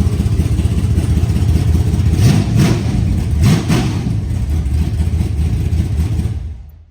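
Holden Commodore project car's engine idling, revved briefly twice about two and three and a half seconds in, then switched off near the end.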